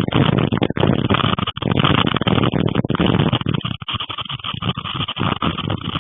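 Gusty storm wind buffeting the microphone, a loud, rough rushing that surges and drops off in irregular gusts.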